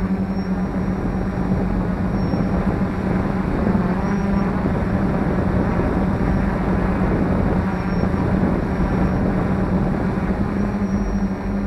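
F450 quadcopter's motors and propellers running, a steady buzzing hum at a nearly constant pitch under a rushing noise.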